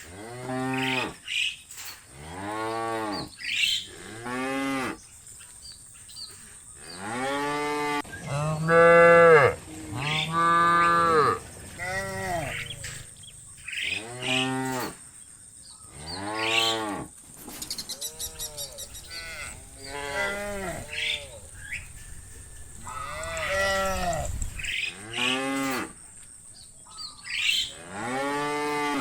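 Cattle mooing again and again, about a dozen calls from several cows, some overlapping, each rising and then falling in pitch.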